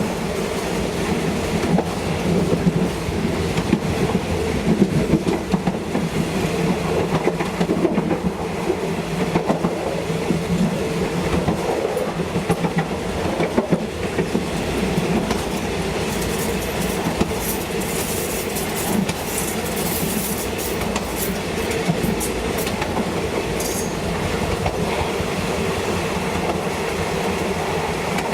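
Diesel train running on the track: a steady engine drone under the rattle and clatter of wheels on the rails. From a little past the middle, a run of sharp, high squeaks and clicks from the wheels.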